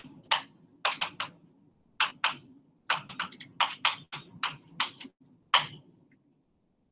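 Marker writing on a board: about fifteen short, quick strokes, stopping nearly six seconds in.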